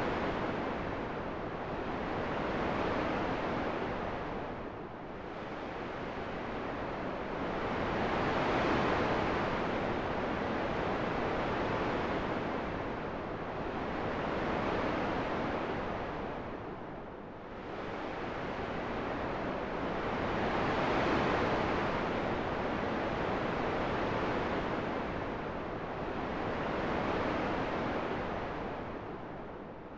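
Wind rushing steadily, rising and falling in slow swells several seconds long.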